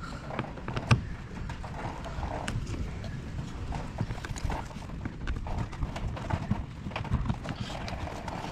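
Irregular small clicks and taps of a screwdriver and fingers working Phillips screws and clips out of plastic car trim, with one sharper click about a second in.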